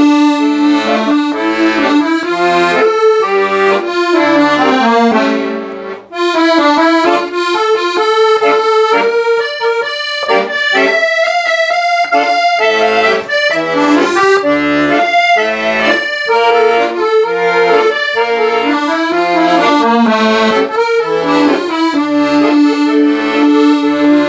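Solo accordion playing a trot song's introduction straight through: a right-hand melody over left-hand bass notes and chords, with a short break about six seconds in between phrases.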